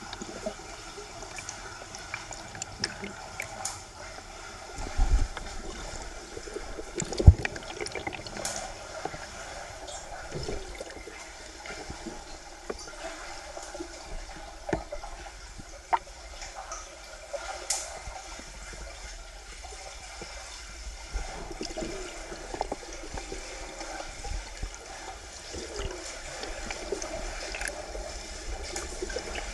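Underwater pool sound: a steady wash and gurgle of water around the camera, with scattered small clicks and two dull knocks about five and seven seconds in.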